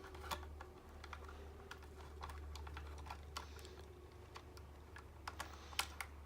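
Irregular small clicks and taps of a screwdriver and copper wire working on a single-pole light switch's terminal screws, over a low steady hum.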